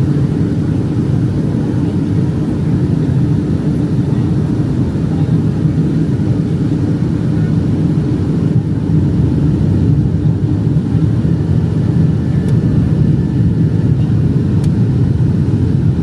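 Steady low rumble inside the cabin of a Boeing 757-232 in descent: airflow noise and the drone of its Pratt & Whitney PW2037 engines, with no change in pitch.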